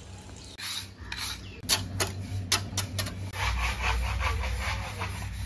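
Rough rubbing and scraping with several sharp clicks, becoming a fast run of scraping strokes over a low rumble in the second half.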